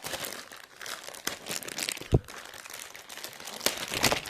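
Packaging crinkling and rustling as a laptop's power adapter is unwrapped by hand, with one sharp thump about two seconds in.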